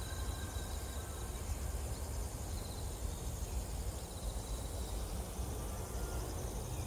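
Outdoor ambience in a bamboo grove: a steady low rumble with an even background hiss, and a faint short high trill about two and a half seconds in.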